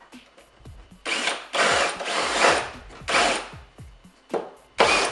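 Cordless drill run in several short bursts, starting about a second in, as it bores a hole to size through a gel-coated race fairing.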